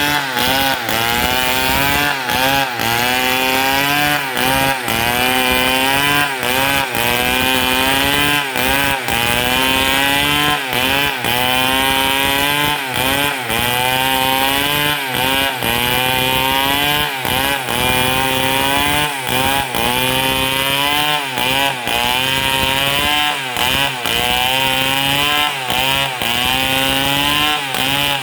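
Stihl 070 two-stroke chainsaw cutting through a palm trunk under load. The engine note sags and recovers about once a second as the chain bites into the wood.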